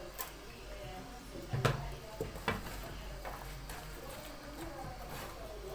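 A few knocks and clatter of kitchen utensils and dishes, the loudest about a second and a half in, over faint background voices.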